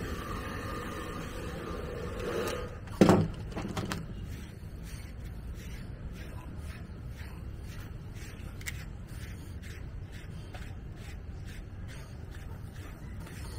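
A handheld hair dryer blowing, which stops about three seconds in with a brief loud sound. After that, a grooming brush strokes through a French bulldog's short coat, soft strokes about two to three a second.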